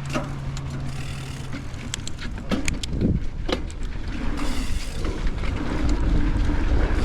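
Mountain bike riding fast down a dirt jump line: tyre noise and wind rushing over the camera microphone, which grow louder over the second half. A cluster of sharp clicks and clunks comes about two and a half to three and a half seconds in, the bike rattling over a jump or landing.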